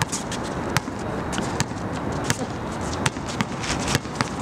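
Basketball game play: scattered sharp knocks and squeaks from the ball and sneakers on the hard court over a steady noisy background, with players' voices now and then.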